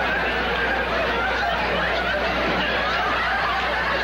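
Studio audience laughing steadily, with the cast laughing along on stage.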